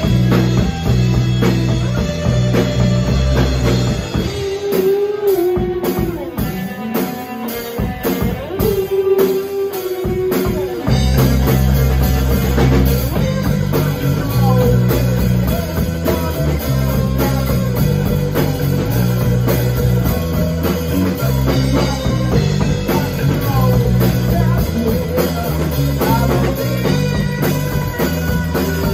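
Live rock band playing: two electric guitars, electric bass and a drum kit. About four seconds in, the bass and low drums drop out, leaving guitar and lighter drum hits. The full band comes back in around eleven seconds.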